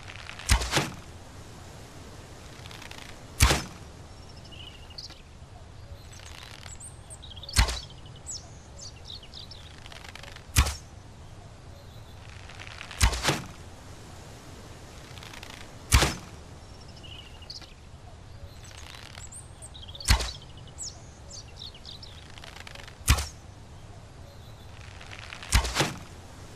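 Bow and arrow shots: a sharp thwack roughly every three seconds, about nine in all, a few heard as a quick double hit. Faint bird chirps come between the shots.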